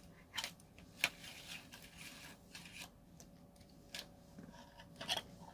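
A baitcasting reel being handled and turned in the hands: a few scattered clicks and rubbing noises, the loudest click about a second in.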